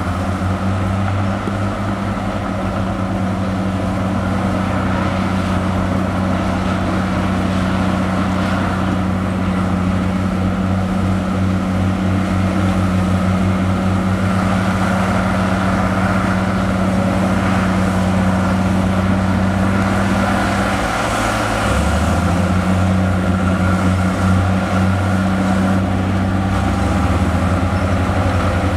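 Heavy earthmoving machine's diesel engine running steadily under load. Its pitch dips briefly about 21 seconds in, then picks back up.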